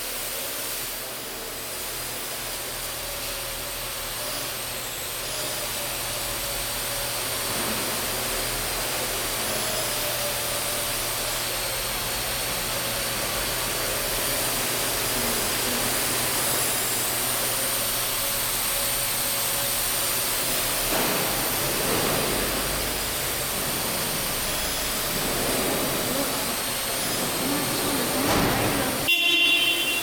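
Parrot AR Drone 2.0 quadcopter in flight, its four electric rotors whirring steadily with a thin high whine as it flies and hovers. The sound becomes louder and more uneven in the last several seconds, with a sudden change just before the end.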